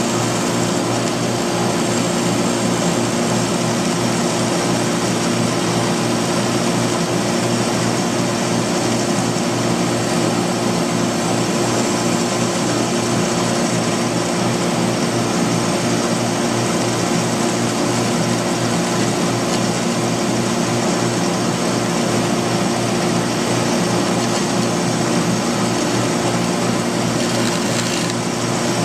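Band saw and shop dust collector running together in a steady, unbroken drone, the narrow blade cutting a small wooden piece.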